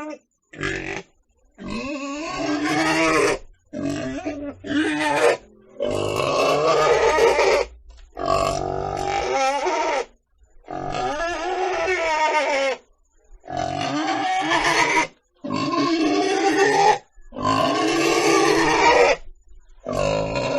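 Pig grunting in a string of about ten loud, harsh calls, each one to two seconds long, separated by brief silences.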